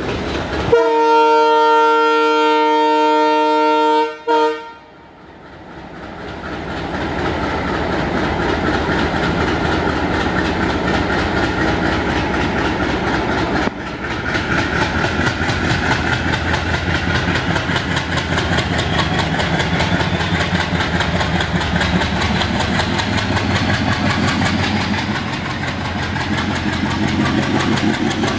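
ALCO WDG3A diesel locomotive's air horn sounds for about three and a half seconds, with a short second toot. Then its V16 ALCO DL560C engine chugs loudly under heavy throttle, and a high turbocharger whine rises steadily in pitch through the second half.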